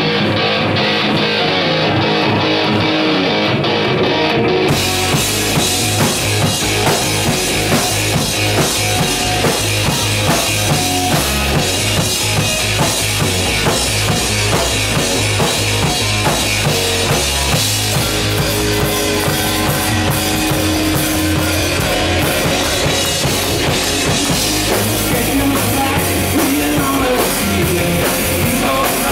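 Hard rock band playing live with distorted electric guitars, bass and drum kit; about five seconds in the drums and cymbals crash in and the full band drives on at a steady beat.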